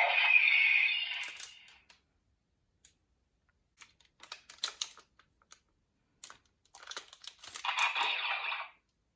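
The tail of a loud, steady sound fades out in the first two seconds. Then come scattered light clicks and taps of folded paper pieces being handled, and a short burst of paper rustling near the end.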